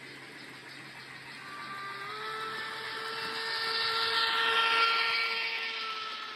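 N gauge model steam locomotive and freight wagons running past on the track. A small motor whines and the wheels hiss on the rails, growing louder as the train approaches, loudest about five seconds in, then easing as the wagons go by.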